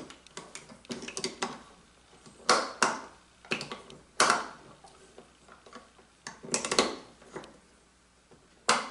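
Metal hold-down clamps being set on a perforated metal worktable: an irregular run of sharp metal clicks and clacks, with a few louder ones spread through and the last near the end.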